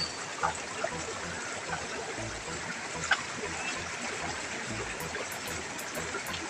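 River water running and trickling steadily, with a few faint knocks or small splashes.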